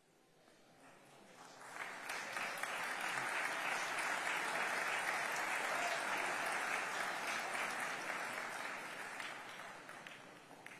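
Audience applauding: the clapping builds over the first couple of seconds, holds steady, then dies away near the end.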